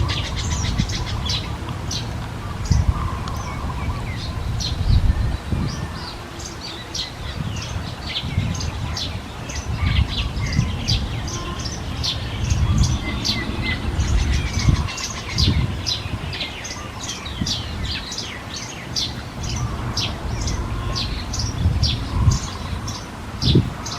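Small birds chirping busily: a dense run of short, high chirps, several a second, throughout. Under them come irregular low rumbling bumps, the loudest a few seconds in, about five seconds in and near the end.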